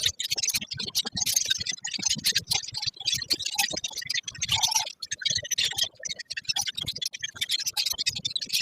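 A colony of lovebirds chattering at once: a dense, unbroken run of high-pitched chirps and clicks.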